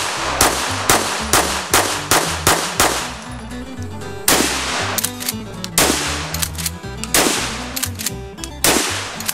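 Pistol shots fired in quick succession, about two or three a second, then pump-action shotgun blasts about a second and a half apart, over background music with a heavy bass beat.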